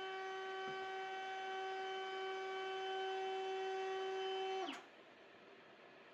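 Wood router with a 1/2-inch round-over bit, used as a flush-trim bit, running with a steady high whine. Near the end it cuts off, its pitch dropping briefly as it stops.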